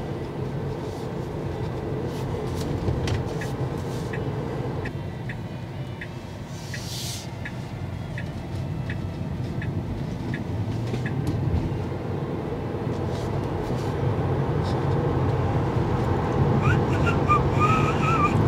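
Road and tyre noise inside the cabin of a Tesla Model 3, an electric car with no engine sound, as it drives along and gets steadily louder while picking up speed. A run of soft, evenly spaced ticks comes a few seconds in.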